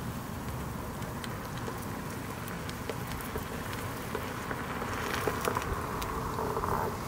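Onewheel electric board rolling over concrete toward the microphone. Its rolling hum grows louder over the last two seconds as it closes in, over a steady outdoor hiss with scattered faint ticks.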